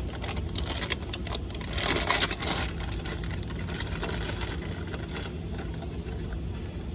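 Rustling, scraping and clicking of a new VVT solenoid being handled and unpacked, loudest about two seconds in, over a steady low hum.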